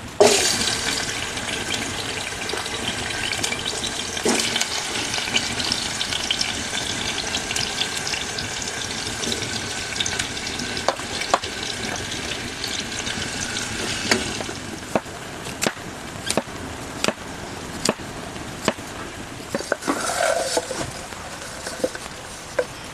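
Food sizzling in a hot pan, starting suddenly as it goes in and dying away after about fourteen seconds, followed by a utensil clicking against the pan about every three quarters of a second.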